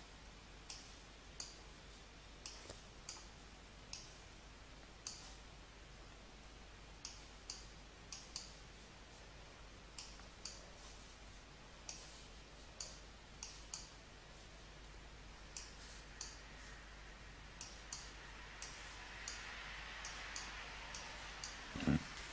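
Faint computer mouse clicks, single and sometimes in quick pairs at uneven intervals of roughly half a second to two seconds, as lines are drawn point by point in a drawing program.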